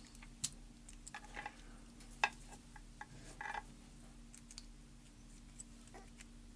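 Faint scattered clicks and light clinks of small metal lock tools and parts being handled, as a plug follower is looked for. The sharpest click comes about two seconds in, with a brief rattle after three seconds.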